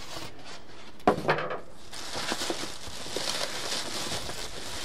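Thin plastic wrapping bag rustling and crinkling as a boxed air fryer is handled inside its cardboard carton, with a sharp knock about a second in.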